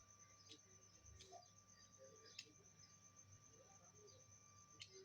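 Near silence with a few faint, sharp clicks.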